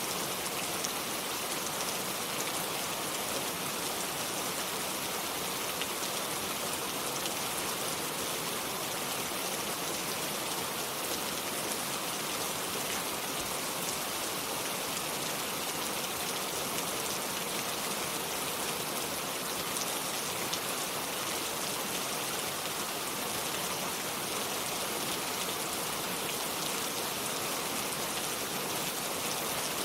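Steady rain falling, an even hiss with fine pattering of drops and no thunder.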